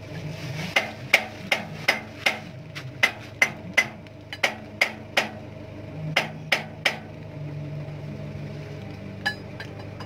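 A hammer beats on metal with about fifteen quick blows, two or three a second, each ringing briefly, then stops about seven seconds in. A steady engine hum runs underneath.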